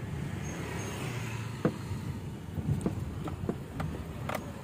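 Car engine running, heard from inside the cabin as a steady low rumble, with a few scattered light clicks in the second half.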